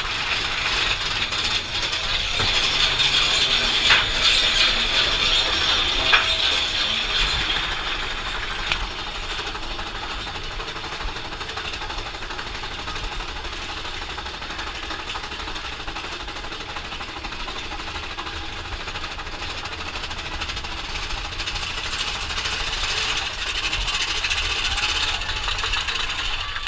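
Mine-train roller coaster running on its track and climbing a chain lift hill, with a continuous rapid mechanical rattling and clattering. Louder in the first several seconds, steadier in the middle of the climb, and louder again near the end.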